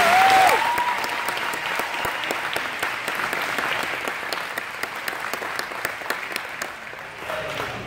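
Audience applauding in a hall, with a brief cheer right at the start. The clapping thins out toward the end.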